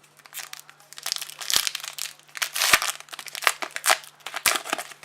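A trading card pack's wrapper being crinkled and torn open by hand, in a quick run of irregular crackles and sharp snaps.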